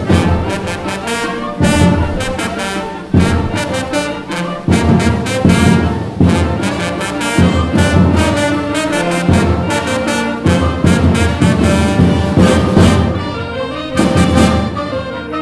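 Live concert band playing a loud, driving passage, with brass prominent and repeated heavy full-band accents.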